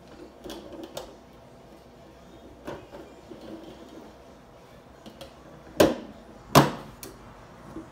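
Plastic parts of a Flowtron bug zapper clicking and knocking as the top plate with its lamp and wiring is handled and fitted back onto the plastic cage. Two sharp knocks come about six seconds in, a little under a second apart, the second the loudest.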